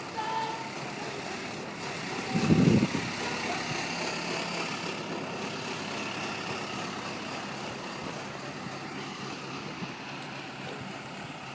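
Fire engine's pump engine running steadily, with a short loud burst about two and a half seconds in.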